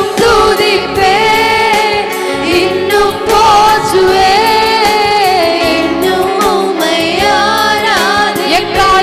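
Christian worship song: sustained, wavering sung melody over steady instrumental backing.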